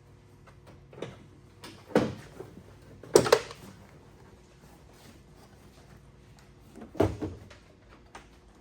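Four separate knocks and clunks of tools and loose dashboard parts being handled during a car interior teardown, the loudest about three seconds in and another near seven seconds.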